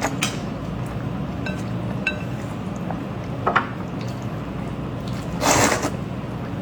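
Eating sounds: utensils clinking lightly against a dish a few times, each with a brief ring, then a short louder wet burst of eating noise near the end.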